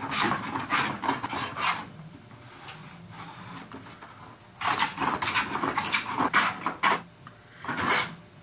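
Wooden scrub plane taking rough cuts across a tough, wild-grained walnut board: a fast run of rasping strokes, about three a second, that stops about two seconds in and starts again about halfway through, with a last short burst near the end.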